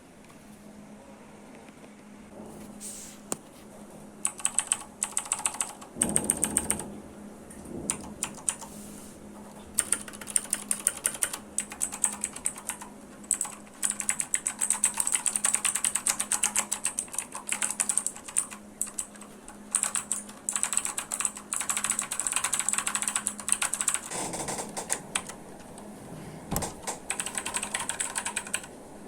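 Typing on a Redragon Kala K557W mechanical keyboard with clicky blue switches. After a quiet first few seconds come fast runs of key presses with short pauses between them, each press giving a sharp click.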